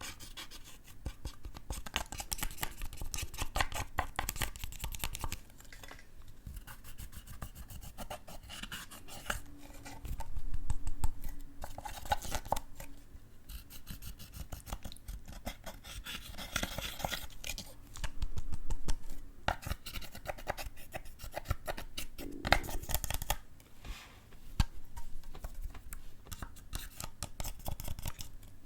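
Hands squishing and stretching slime: a dense run of small sticky clicks and crackles, with a few louder bursts of squelching along the way.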